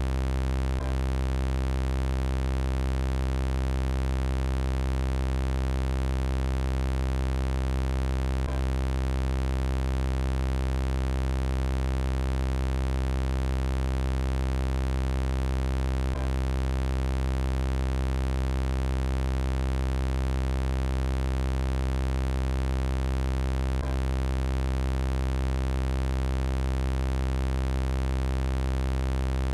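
Synthesized robot-voice sound effect: a steady electronic buzz of unchanging pitch, rich in overtones, with no speech-like rise and fall. A faint click about every eight seconds marks where the loop restarts.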